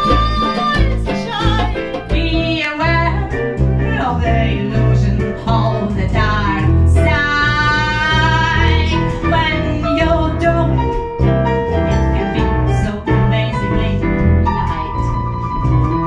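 Band music: a woman singing over strummed acoustic guitar, keyboard and bass. About seven to nine seconds in, she holds one long note with vibrato.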